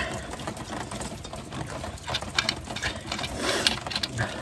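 A juice bottle being handled and its screw cap twisted open: a run of small irregular clicks and rustles, thickest in the second half, after a brief louder rustle at the start.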